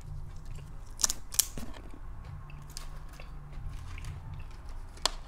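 Close-miked eating of a shell-on shrimp: a few sharp crunching clicks of shell and chewing, two about a second in and one near the end, over a faint low hum.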